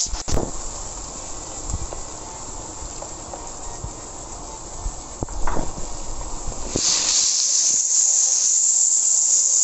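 Onion-and-spice masala sizzling in hot oil in a nonstick wok as tomato puree is added and stirred in, with a few spatula taps. About seven seconds in, the sizzling turns much louder and hissier.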